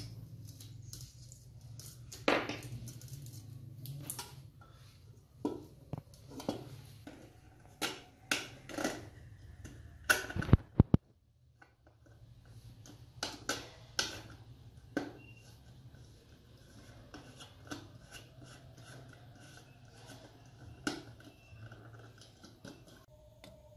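Metal clicks, clinks and knocks of a hurricane lantern's parts being handled and fitted back together, scattered irregularly, with a cluster of sharper knocks about ten seconds in. A steady low hum runs underneath and drops out briefly just after the louder knocks.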